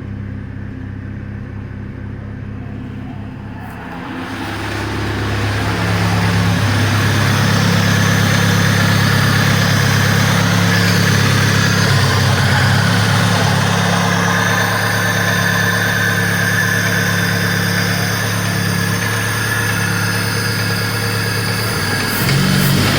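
VAZ-2101 inline-four engine idling, then revved up about four seconds in and held at a raised speed before dropping back near the end. The engine has a knock that turned out to come from a piston pin.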